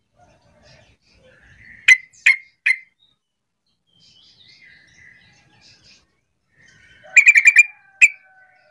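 Yellow-vented bulbul calling: three loud, sharp notes about two seconds in, soft chatter, then a quick run of about six notes and one last note near the end.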